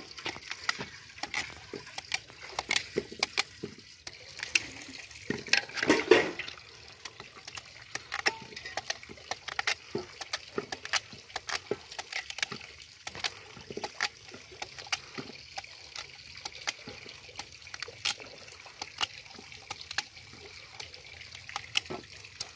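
Chunks of peeled taro (arrowroot) being handled in metal bowls of water: a steady run of small knocks, clicks and splashes as pieces are dropped in and moved about, with one bigger splash about six seconds in.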